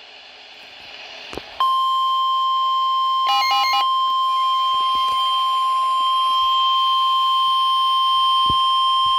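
NOAA Weather Radio warning alarm tone: a single steady, loud tone of about 1050 Hz that comes on sharply after a moment of faint hiss and holds without a break. It is the tone that signals an urgent warning message is about to be read. A brief chirp of alternating tones sounds over it shortly after it begins.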